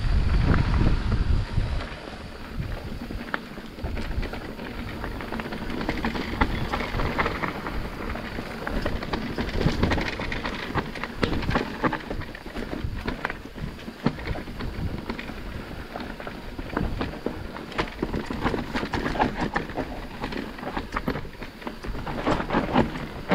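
Mountain bike riding over a rough trail: a steady clatter of the tyres crunching over stones and the bike rattling, with wind buffeting the microphone for the first two seconds.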